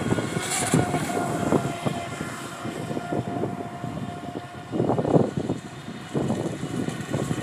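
Radio-controlled speedboat with an EMP 3656 1200kv brushless motor running at speed on a 5S LiPo, a steady high electric whine as it planes across the water. Louder rushing noise breaks in about five and six seconds in.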